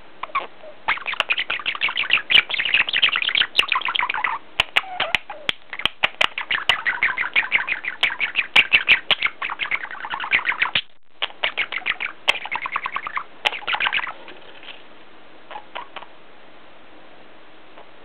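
Budgerigar chattering and warbling close to the microphone: a fast, unbroken stream of chirps and clicks. It breaks off briefly about eleven seconds in, stops at about fourteen seconds, and a few faint chirps follow.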